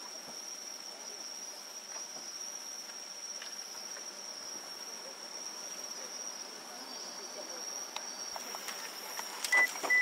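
Night insects singing in one steady, unbroken high-pitched chorus. Near the end come a few sharp clicks and knocks from the camera being handled as it is reframed.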